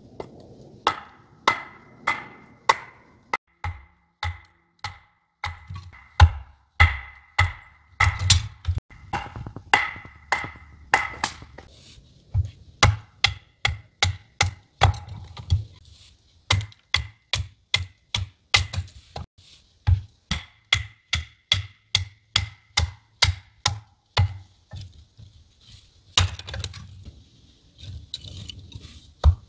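Kindling being split by batoning: a fixed-blade knife struck on its spine with a piece of wood, driving it through split firewood. Sharp wooden knocks, about two a second, ring briefly after each strike for the first twelve seconds or so.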